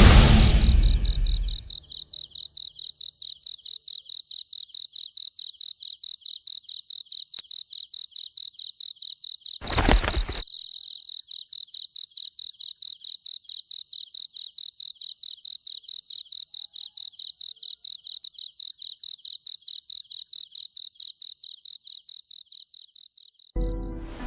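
A night insect chirping in a steady, high-pitched pulse, about three to four chirps a second. About ten seconds in, a brief burst of noise cuts across it.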